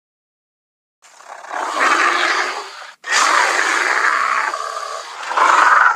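Two gruff animal roars, one after the other: the first begins about a second in and cuts off abruptly, and the second follows at once and grows louder near the end.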